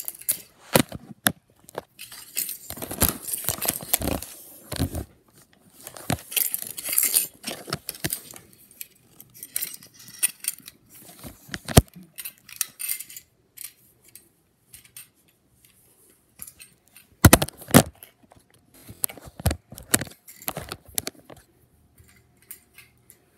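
Handling noise from a wooden snap mouse trap and the camera: scattered clicks, small metallic clinks and knocks with stretches of rustling as the trap's spring-loaded wire kill bar is pulled back and the camera is moved about. The loudest knocks come about two thirds of the way in, with quieter gaps between.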